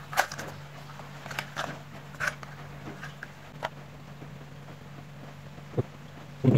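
Scattered light clicks and rustles of hands handling an LED headlight bulb and its packaging, with two soft thumps near the end, over a steady low hum.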